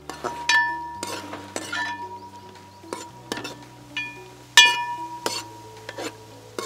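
A metal utensil repeatedly clinking and scraping against a metal cooking pot as beans are stirred and fried in ghee. The strikes come irregularly, about two a second, and each one rings briefly. The loudest comes about four and a half seconds in. Background music with slow, held low notes plays underneath.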